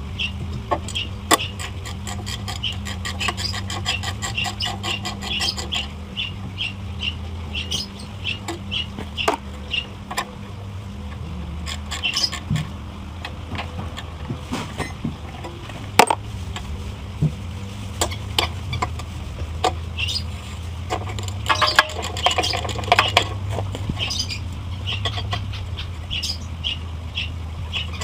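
Scattered metal clicks and knocks of hand tools on a small engine, one sharp knock standing out about midway. Under them runs a steady low hum, with runs of short high chirps at about two or three a second.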